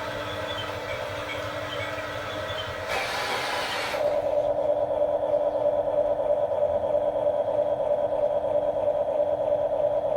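Small electric gear motors of a radio-controlled toy construction vehicle running: a steady mechanical whir with light clicking at first, then about four seconds in a louder, steady whine takes over.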